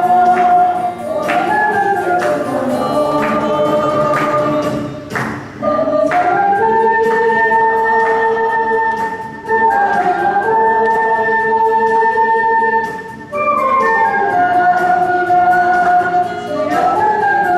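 A crowd singing a song together in unison, accompanied by an ocarina ensemble, in phrases of long held notes with short breaths between them.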